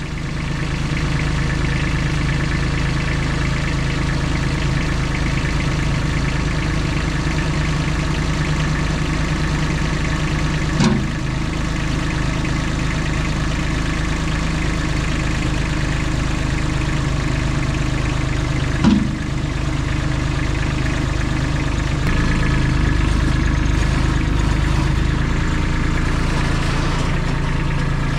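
An engine running steadily at an even speed, with two short sharp knocks, one about a third of the way in and one about two-thirds in.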